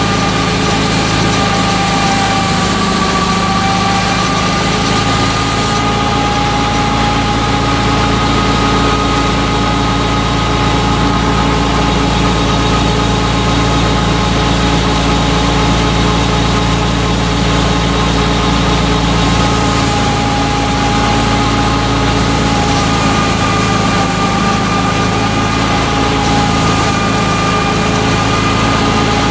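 Wheat thresher running steadily as sheaves are fed into it, driven through its drive shaft by a FIAT 640 diesel tractor: an even drone with a steady high whine over it.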